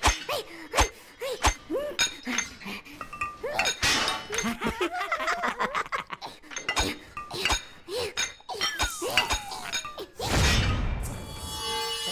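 Cartoon soundtrack: comic music with quick clicking and knocking effects and short vocal sounds from the animated characters, straining grunts and laughter. A falling whistle leads into a loud, noisy crash about ten seconds in.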